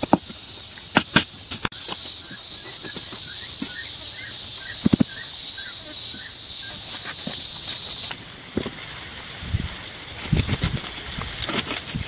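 A steady, high-pitched insect drone that starts and stops abruptly, with scattered sharp knocks and taps throughout and a run of short chirps in the middle.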